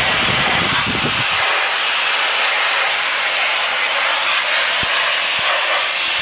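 High-pressure washer spraying: a loud, steady hiss of the water jet from a long wand striking the sculpture.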